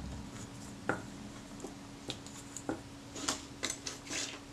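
Light, irregular clicks and taps of small metal parts, the outer case and fittings of a Kodak Retina IIIc shutter, being handled by hand on a bench, about half a dozen over a few seconds.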